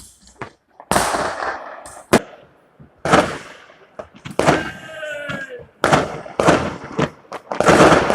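New Year's Eve fireworks: a run of loud bangs, about eight in eight seconds, several trailed by crackling, with a pitched wail lasting about a second in the middle.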